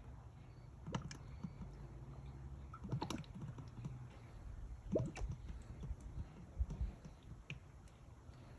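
Faint, scattered clicks and light knocks, a few seconds apart, from an oil additive bottle being handled and emptied into the engine's oil filler.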